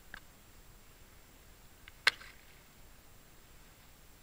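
A small axe chopping into thin ice: one sharp crack of a blow about two seconds in, followed by a brief crunch of breaking ice, with a faint tap just after the start.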